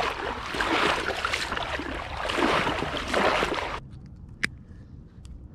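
Marsh water sloshing and splashing, an uneven rushing noise that cuts off suddenly about two thirds of the way through. A quieter stretch follows, with one sharp click.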